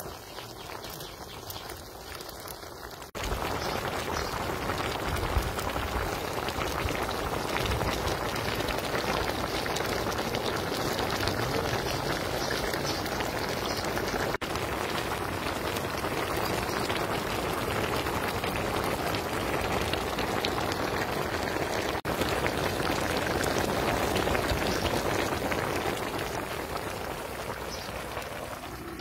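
A large pan of soupy chicken curry boiling hard, a steady dense bubbling and spitting, louder from about three seconds in.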